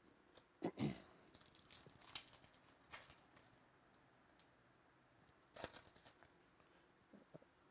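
Foil trading-card pack wrapper crinkling and tearing as it is slit open and the cards are pulled out, in short irregular rustles, the loudest about a second in and near six seconds.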